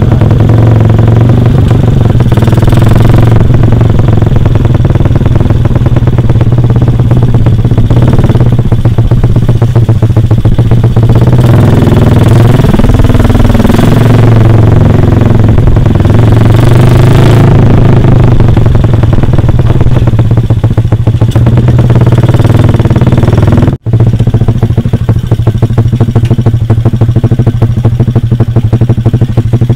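Yamaha LC135's single-cylinder four-stroke engine running through an open AHM M3 exhaust, revving up and down with the throttle, with rising and falling revs in the middle. It drops out for an instant about three-quarters of the way through. The carburettor is not yet matched to the exhaust: the owner says it runs rich on too large a pilot jet.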